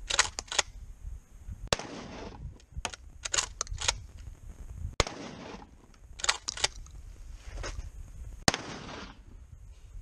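12-gauge shotgun firing birdshot: three sharp shots about three and a half seconds apart, each with a short echo, and shorter clicks in between as the gun is worked and spent shells are ejected.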